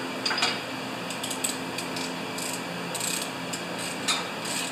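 Ratchet wrench with a 5/8-inch spark plug socket clicking in short, irregular runs as the spark plug is backed out of a Briggs & Stratton snowblower engine.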